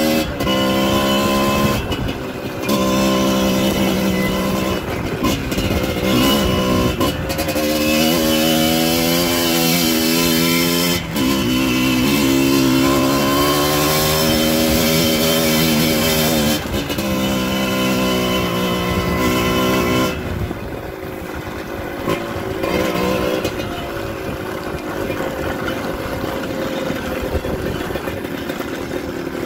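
Dirt bike engine under way, its pitch climbing and then dropping again and again as the throttle is worked through the gears. From about twenty seconds in it runs quieter and lower.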